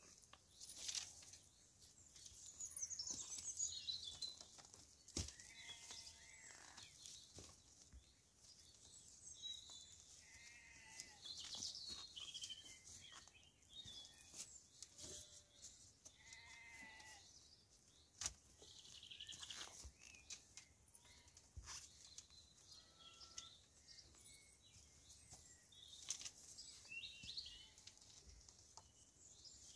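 Faint clicks and rustles of willow rods as they are woven between fence stakes, with high bird chirps. Several short bleat-like cries are scattered through it.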